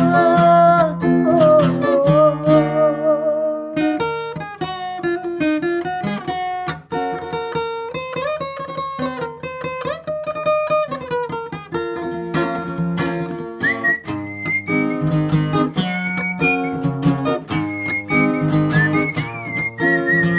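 Acoustic guitar playing an instrumental interlude: a picked melody over a bass line, after a sung note with vibrato fades out about two seconds in.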